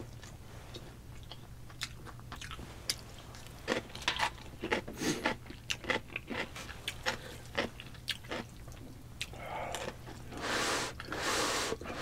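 Close-miked crunching and chewing of crisp yellow pickled radish (danmuji): a run of sharp, irregular crunches. Near the end come long hissing slurps of spicy instant ramen noodles.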